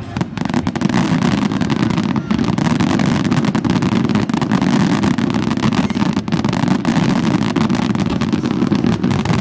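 Dense fireworks barrage: a continuous loud rumble of many overlapping bursts, with sharp crackling pops all through.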